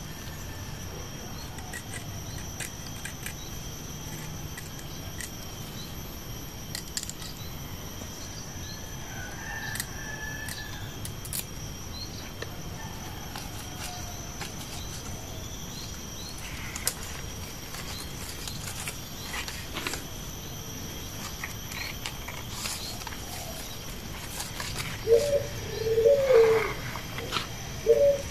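Outdoor bird sounds: faint small-bird chirps scattered throughout, then from about three seconds before the end a dove cooing loudly several times in low, rounded notes.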